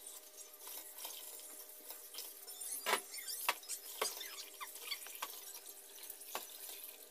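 Tap water running into a stainless steel basin while raw chicken pieces are rubbed and rinsed by hand, with sharp sloshes and knocks every second or so, the loudest about three seconds in.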